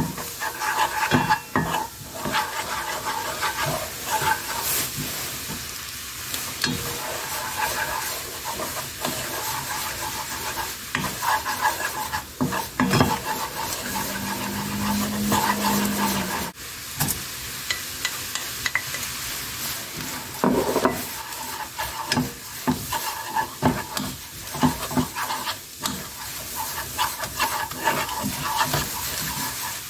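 Soy-sauce seasoning bubbling and sizzling in a hot pan as it boils, while a spatula stirs it, with repeated scraping strokes against the pan.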